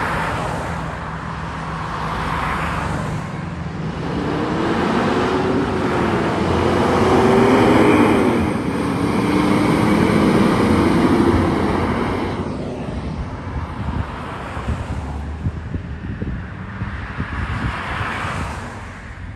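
A school bus accelerating past and driving away: engine and road noise build to a peak about ten seconds in, with a whine that rises and falls in pitch as it goes by, then fade as it recedes. Other cars pass briefly near the start and near the end.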